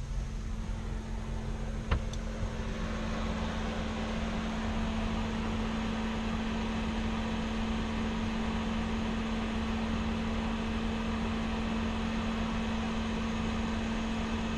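Van's Fan-Tastic vent fan running steadily with a low hum, a single click about two seconds in, after which the fan's rushing noise grows a little fuller.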